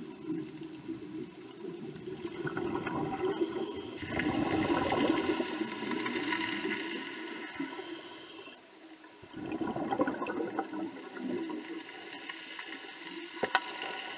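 Scuba breathing heard underwater through a diving regulator. A short hiss of inhaling is followed by a long gurgle of exhaled bubbles, twice over. A single sharp click comes near the end.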